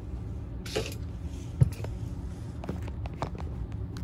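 Handling noise of a phone being repositioned and propped up against an object on a desk: a short scrape about a second in, a sharp knock shortly after, then a few light clicks, over a steady low hum.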